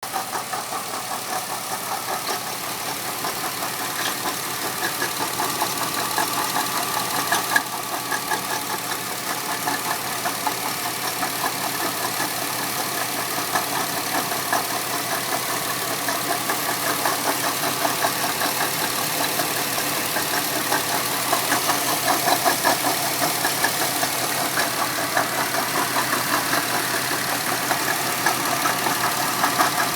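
Porsche 997 Carrera 4 flat-six idling, with an intermittent metallic grinding and whining that goes in and out over the engine hum, locomotive-like. Its cause is unknown: the serpentine belt, pulleys and bearings looked fine. A single sharp click comes about a quarter of the way in.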